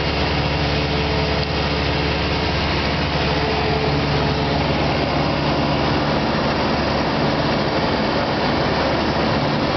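Single-engine Cessna's piston engine and propeller, heard from inside the cockpit in flight: a steady drone with several held tones over a broad rush of noise.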